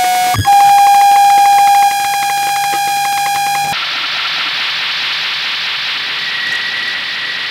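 Electronic noise piece: a steady, loud buzzing tone with many overtones holds for about three seconds, stepping down in level partway, then cuts off abruptly into a steady hiss, over which a faint high whine comes in near the end.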